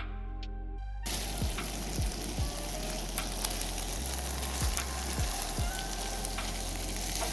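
Background music with a steady beat of low thumps. From about a second in until just before the end, a loud, even crackling hiss like sizzling lies over it, then stops suddenly.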